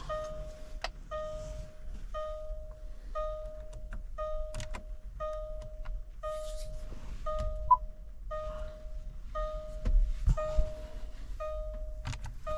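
A car's warning chime bonging steadily about once a second, from a 2014 Land Rover Discovery 4 with a diesel that will not start. Sharp clicks and a few knocks sound over it, the loudest about ten seconds in.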